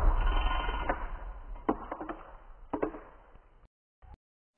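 Dying echo and rumble of a loud bang, a balloon of HHO gas exploding after a backfire through a 26cc weed-eater engine's carburetor, fading away over about two seconds. Three sharp knocks come along the way, and the sound cuts off about three and a half seconds in.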